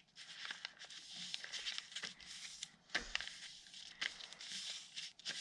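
A sheet of paper rustling as it is folded and creased by hand, with a few short sharp crinkles.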